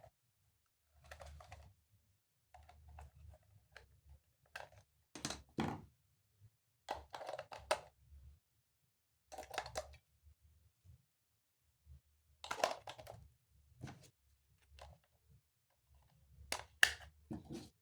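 Faint, irregular clicks, knocks and short rustles from a plastic toy and its packaging being handled.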